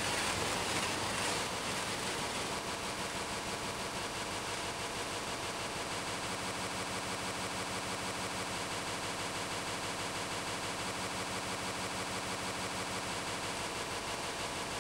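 A steady, machine-like drone of several held tones, pulsing evenly about five times a second.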